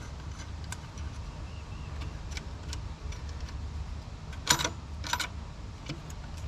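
Light metallic clicks and clinks of bolts and hand tools being handled while fitting an alternator bracket, with two louder clatters about four and a half and five seconds in, over a steady low hum.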